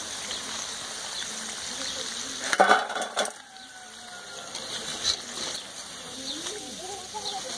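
Potato pakoras frying in hot oil in a metal wok: a steady sizzle. About two and a half seconds in, a wire-mesh skimmer clatters briefly against metal as fried pakoras are lifted out.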